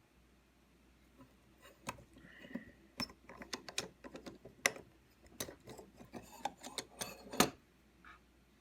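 A run of irregular sharp clicks and light taps of small hard objects being handled, starting about two seconds in and ending with the loudest knock near the end.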